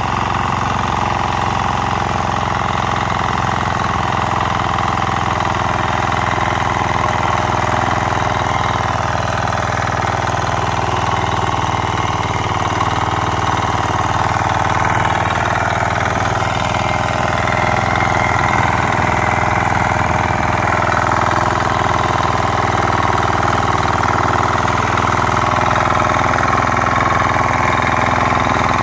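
Engine of a small walk-behind power tiller running steadily under load while its rotary tines churn soil and weeds.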